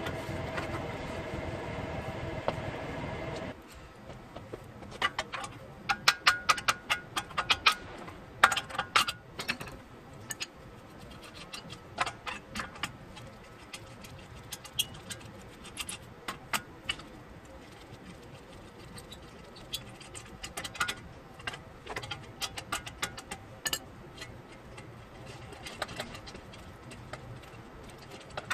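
Metal hand tools and engine parts clinking and rattling in many short, sharp clicks, densest in the first few seconds after a steady droning sound cuts off early on.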